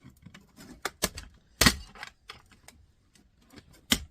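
Flathead screwdriver prying and tapping at small metal pieces in a plastic cassette-deck part: irregular light clicks and taps, with two sharp knocks, one about a second and a half in and one near the end.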